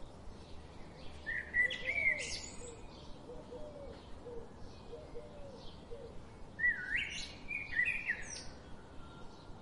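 Wild birds singing and chirping: two louder song phrases of quick sweeping notes, about a second and a half in and again about seven seconds in, over a background of short chirps repeating about twice a second.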